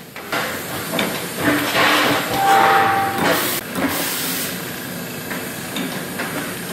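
Automatic rotary pouch filling and sealing machine running: repeated air hisses and mechanical clacks as it fills and seals pouches of marinated meat, with a short steady tone about two and a half seconds in.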